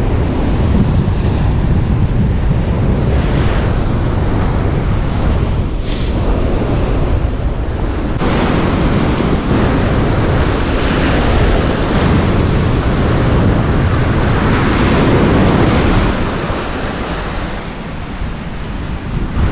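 Strong onshore wind buffeting the microphone over the steady rush of breaking surf, easing slightly near the end.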